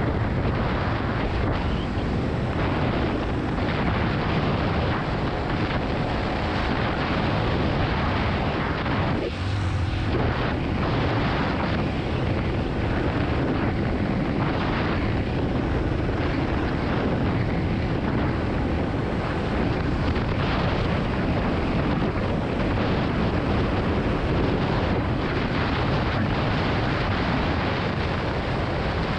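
Heavy wind rush on the microphone of a Yamaha XT250 dual-sport motorcycle under way, with its air-cooled single-cylinder engine running underneath. The noise is steady and briefly eases about nine seconds in.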